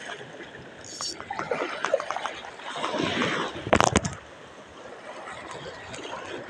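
Small waves washing and lapping at the edge of a sandy beach, with a short, loud rustling burst just before four seconds in.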